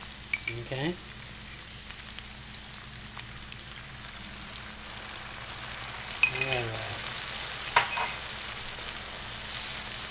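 Pan sauce of bacon, onion and chicken stock sizzling in a frying pan while a wooden spoon stirs it, with small clicks and scrapes of the spoon. The sizzle grows louder about six seconds in.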